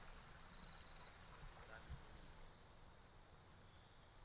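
Near silence with a faint, steady, high-pitched insect trill running throughout.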